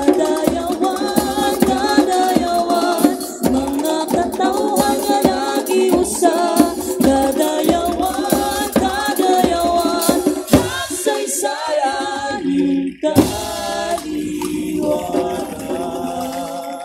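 A large group of voices singing a chant-like song together over a steady percussion beat. The music breaks and changes character about thirteen seconds in.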